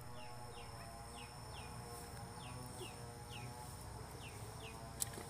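Faint bird calls: a short, falling chirp repeated about twice a second, over a steady low hum and a thin high whine, with one sharp click near the end.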